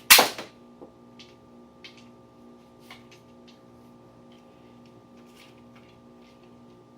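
Nerf Sling Strike dart blaster firing one shot: a single loud, sharp snap just after the start, followed by a few faint handling clicks.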